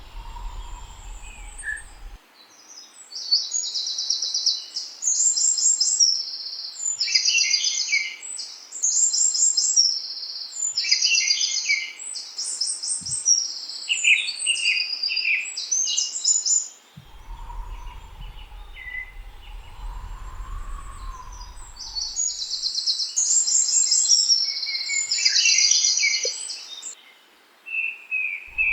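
Songbirds singing: a run of rapid, trilled phrases repeated one after another, with some lower chirps between them. A low rumble comes in near the start, through the middle, and again at the end.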